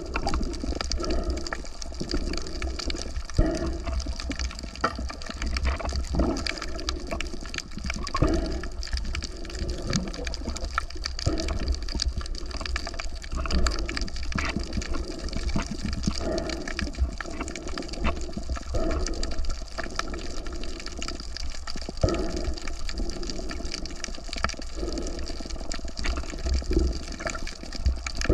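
Water sloshing and gushing without a break, swelling irregularly every second or two, with many small clicks and knocks.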